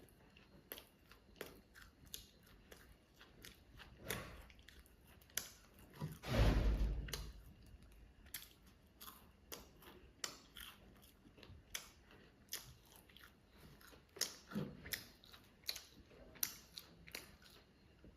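A person eating a fast-food hamburger: repeated chewing and biting with small crunches. One louder, longer noise comes about six seconds in.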